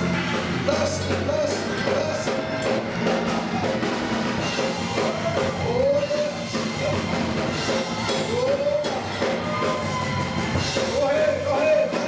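Live gospel music: a voice singing over drums and other instruments.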